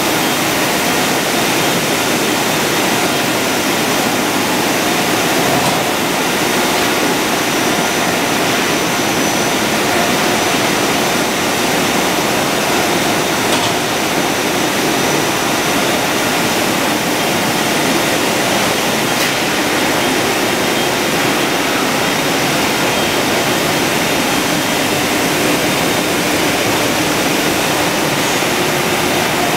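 Double twist bunching (stranding) machine running at speed: a loud, steady rushing noise with faint steady tones mixed in.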